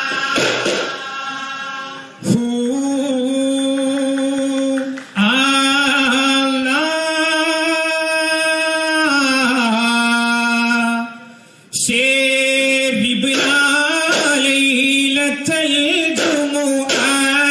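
Duffmuttu: a group of male voices singing in unison with long held notes, and daff frame drums struck in rhythm at the start and again after a brief pause about twelve seconds in.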